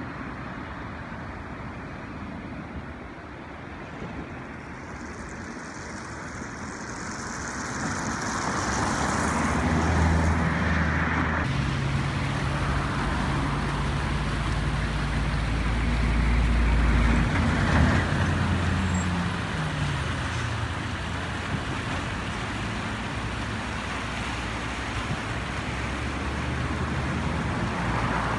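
A motor vehicle drives past on a nearby road. Its engine grows louder, is loudest about two-thirds of the way through, then drops in pitch as it moves away. Underneath is a steady rushing from the river's shallow rapids.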